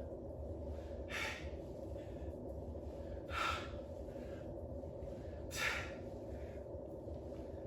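A man's hard breathing during squat reps: three short, sharp exhalations about two seconds apart, one per rep, over a steady low hum.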